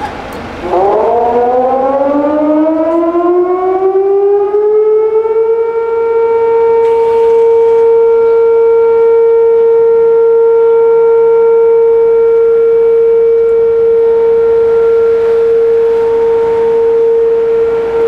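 Civil defense air-raid siren starting up: it winds up in pitch over about five seconds, then holds one loud, steady tone.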